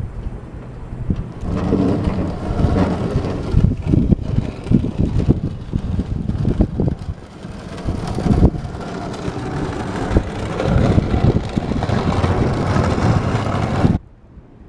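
Small home-built electric tractor ploughing snow: the blade scraping and crunching through snow and ice with many irregular knocks. The sound drops off abruptly near the end.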